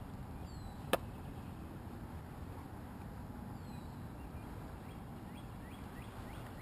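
Quiet lake ambience: a low steady rumble, a few faint high bird calls, and a single sharp click about a second in.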